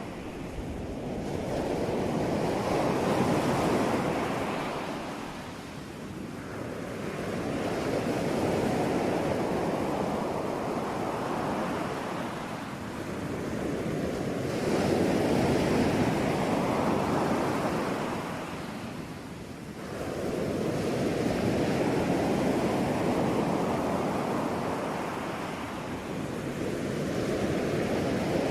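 Ocean surf: waves rush in and wash back one after another, each swelling and falling away over several seconds, about five of them, one every five to seven seconds.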